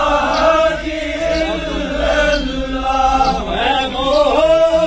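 A group of men chanting dhikr together, drawing out long sung notes of the remembrance of God in unison.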